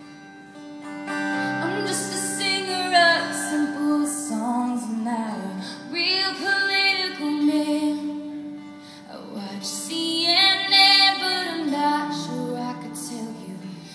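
A woman singing a slow country ballad live with an acoustic guitar, amplified through a hall's sound system. There are three sung phrases, and the guitar chords ring on between them.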